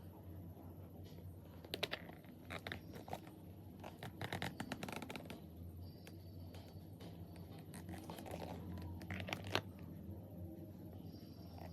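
Packaging being handled: several short bursts of crinkling, scratching rustle, over a low steady hum.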